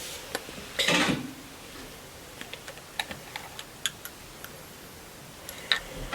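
Light clicks and taps of cosmetic packaging being handled and opened, with a short rustling burst about a second in and scattered small clicks after it.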